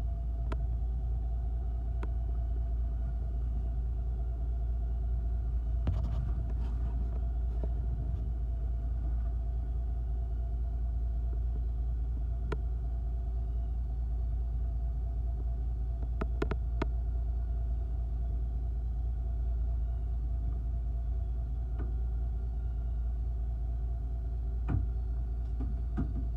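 Fishing boat's engine running steadily: a constant low rumble with a steady hum over it, and a few faint clicks now and then.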